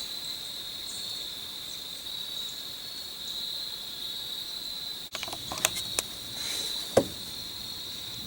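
A steady high-pitched chorus of insects trilling in the woods. In the second half come a few sharp clicks, the last and loudest about seven seconds in.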